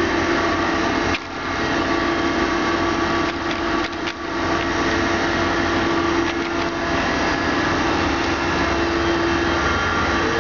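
Steady machine hum with a steady mid-pitched tone, broken by a click about a second in and a few clicks around four seconds in. The tone drops out near the end.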